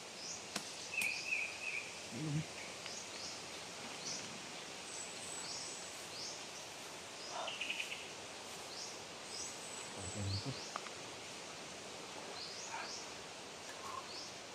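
Outdoor ambience: birds chirping over a steady background hiss, many short, high-pitched rising calls repeating throughout. Two soft low bumps, about two and ten seconds in.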